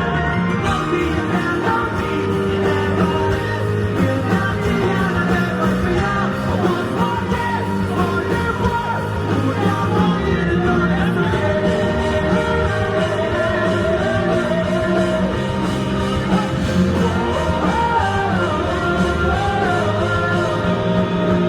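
Live rock band playing with a male lead vocal over drums, bass and guitar; the melody line bends and wavers more in the second half.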